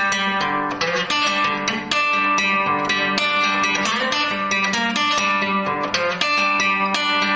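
Guitar music, rapidly picked notes following one another in quick succession over steadily held lower notes.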